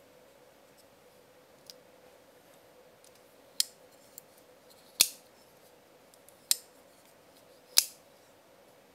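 Colt M4 side-lock folding knife being snapped open and shut by hand: four sharp metallic clicks of the blade swinging home and the lock catching, about a second and a half apart from about three and a half seconds in, with a few fainter handling ticks between.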